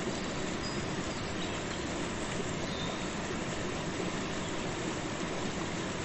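Waterfall and river water rushing in a steady, unbroken roar.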